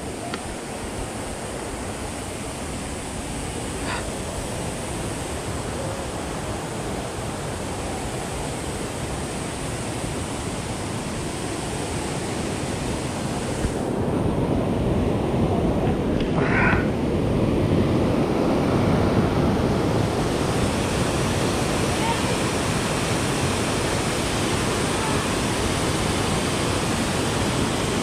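Waterfall on Fossil Creek: a steady rush of falling water that grows louder about halfway through. A brief high-pitched sound cuts through the rush a little past the middle.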